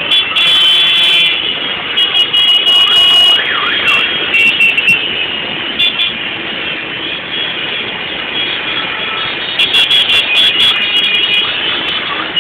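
Many motorcycles running together in a crowded street, with high, steady shrill tones sounding on and off over the engine noise, loudest in the first few seconds and again near the end.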